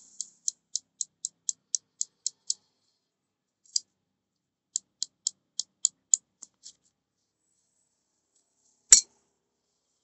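Quick, light metal-on-metal ticks or scrapes from hand work on a small metal part, about four a second, in two short runs. Then a single sharp metallic knock near the end as a metal tube is set down on the ground.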